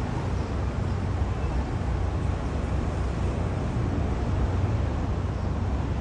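Steady low outdoor rumble with no distinct sounds standing out.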